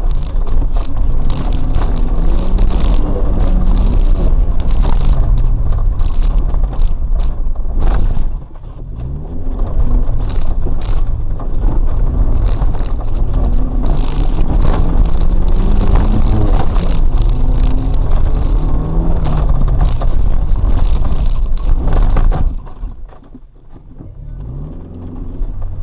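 Suzuki X-90's four-cylinder engine, heard from inside the cabin, revving hard under load, its pitch rising and falling again and again with throttle and gear changes. It dips briefly about eight seconds in, and near the end it drops sharply to a quiet low-rev run as the car slows.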